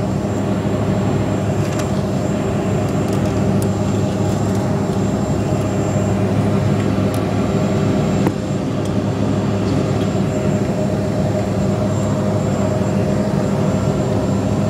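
Steady cabin drone of a jet airliner climbing out after takeoff, its engines running with a constant low hum and rushing air noise. A single brief click about eight seconds in.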